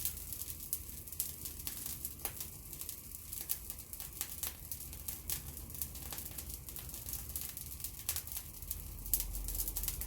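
Overheating electric fan heater crackling and ticking irregularly over a low steady hum.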